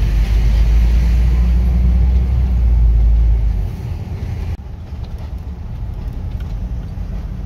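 Low, steady rumble of an RV driving slowly on a dirt campground road, heard from inside the cab. It eases a little over halfway through, then carries on quieter.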